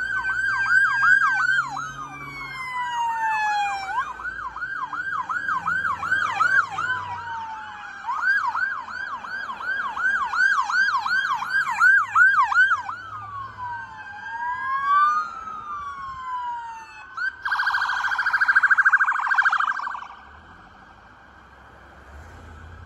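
Several police cruiser sirens sounding together as a convoy passes, overlapping fast yelp chirps with slower rising and falling wails. A harsh, buzzing horn blast, the loudest sound, comes about 17 seconds in. The sirens cut off about 20 seconds in, leaving quieter engine and road noise.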